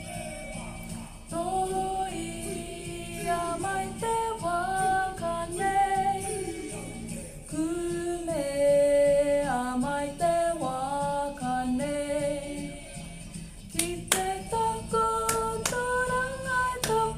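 Female singing of a Māori waiata, a single melody of held notes that rise and fall. A few sharp hits cut in near the end.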